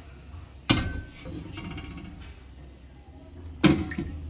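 Steel cooking pot of water set down on a gas stove's metal grate with a sharp clunk under a second in, then a second sharp impact near the end as a piece of meat is dropped into the water.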